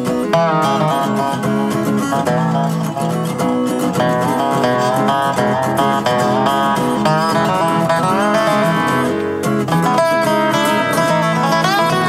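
Acoustic guitar and dobro playing an instrumental passage of quick plucked notes over strummed chords, with a few sliding notes about half a second in.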